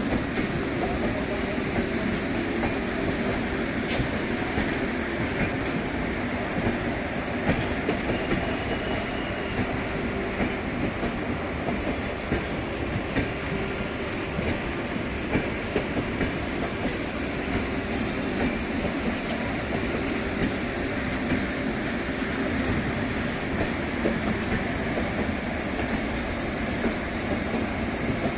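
Vande Bharat Express electric multiple-unit train running along the track: a steady rumble, with the wheels clacking over rail joints again and again.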